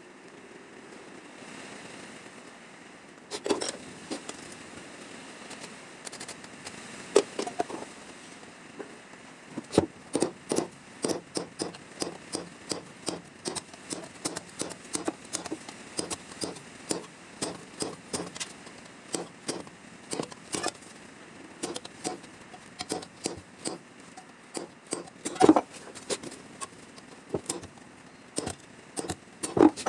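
Sheet-metal bodywork on a car's rusted rear fender: a few separate sharp knocks, then from about a third of the way in a steady run of short, sharp clicks or snips at about one to two a second, with a couple of louder ones near the end.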